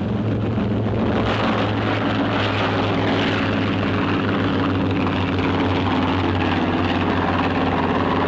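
Propeller-driven dive bombers' piston engines droning steadily in flight, a dense, unbroken engine drone that swells slightly about a second in.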